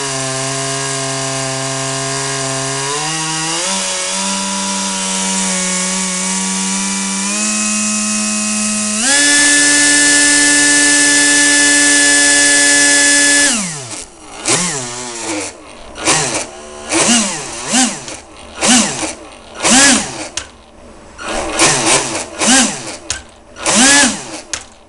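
Hand-built RC airboat's shrouded fan unit running on the bench: a steady motor whine that steps up in pitch in stages, jumps to its highest and loudest about nine seconds in, holds, then winds down. After that comes a string of short throttle blips, each rising and falling in pitch, about one a second.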